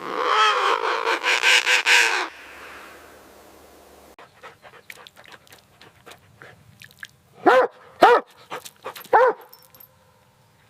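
Animal calls: a dense, loud stretch of about two seconds at the start, a run of faint clicks, then three short rising-and-falling calls near the end.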